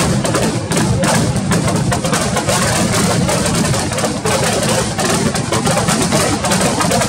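Firecrackers packed inside a burning Ravana effigy going off in a rapid, unbroken barrage of bangs and crackles.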